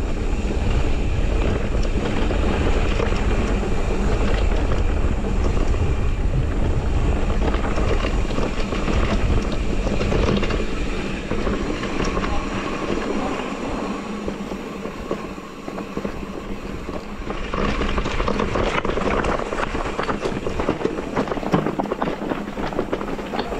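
Electric mountain bike riding over a rough, stony track: tyre rumble and the rattle and clatter of the bike, with wind buffeting the microphone. The noise eases for a few seconds past the middle, then the rattling picks up again.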